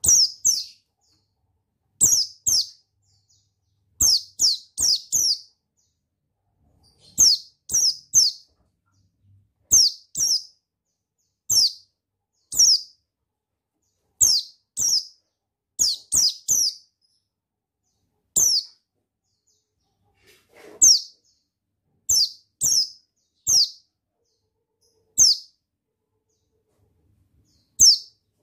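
A pleci buxtoni white-eye calling in short, sharp high notes that each sweep quickly downward. The notes come singly or in quick runs of two to four, about every one to two seconds, with short pauses between.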